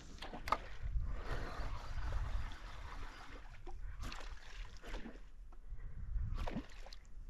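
Water lapping and gurgling against a paddleboard's hull, over a steady low rumble, with a few sharp knocks spaced a second or more apart.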